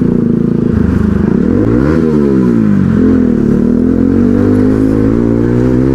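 Motorcycle engine heard from the rider's seat while riding: the revs fall about a second and a half in, climb again from about two seconds, dip briefly near three seconds, then rise slowly and steadily.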